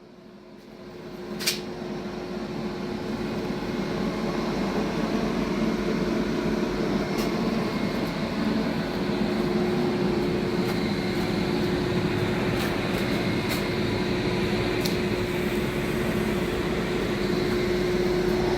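A machine running steadily with a whir and a steady hum tone, building up over the first few seconds; a single sharp click about a second and a half in.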